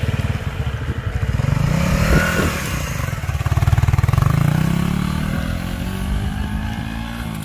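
Suzuki Raider 150 motorcycle's single-cylinder four-stroke engine pulling away and accelerating: the revs climb until about two seconds in, drop at a gear change, then climb again and ease off as the bike rides away.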